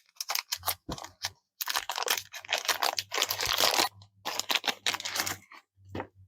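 Packaging crinkling and rustling, with small clicks and taps, as a small clip-on flashlight is unwrapped and taken out of its box; the crackling comes in two longer spells with a few sharp clicks before and a single tap near the end.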